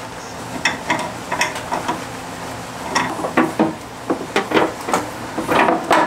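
Irregular light knocks, clicks and rattles of a rubber gas hose and its fitting being handled against a portable water heater and its plastic hard case, busier in the second half.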